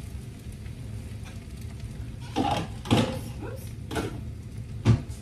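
Kitchen cupboard and dishes being handled as a bowl is fetched: four separate knocks and clinks, the loudest near the end.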